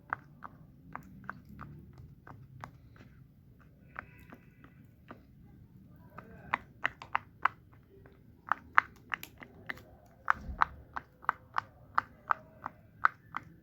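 Plastic fidget toys being clicked and snapped: sharp clicks, sparse at first, then quicker and louder from about six seconds in, at about four a second.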